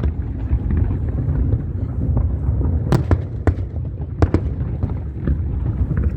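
Fireworks going off: a continuous low rumble of bursts, with sharp cracks standing out, the loudest about three seconds in and several more over the next two seconds.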